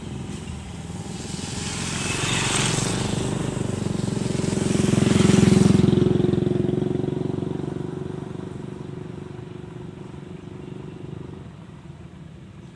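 Motorcycles passing close by: two pass-bys that swell and fade, the second and loudest about five seconds in. Under them a steady engine drone carries on and stops near the end.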